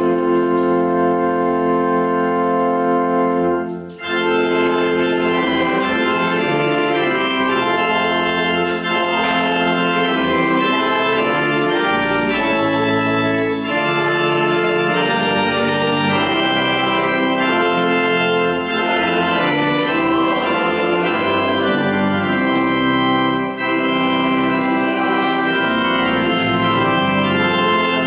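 Church organ playing sustained chords in slow phrases, with a short break between phrases about four seconds in.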